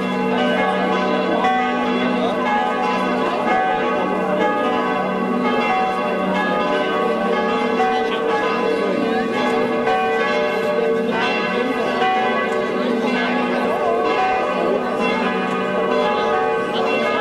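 Church bells ringing on and on, their overlapping tones filling the air, over the low chatter of a crowd.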